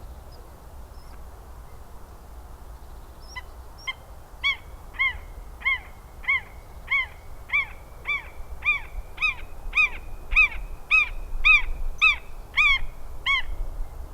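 A bird calling a long, even series of about sixteen clear, arched notes, roughly one and a half a second. It starts about four seconds in and grows louder toward the end.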